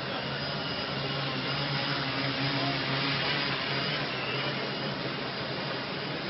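HeliMAX Form500 quadcopter in flight, its electric motors and propellers giving a steady whirring buzz that grows a little louder about halfway through.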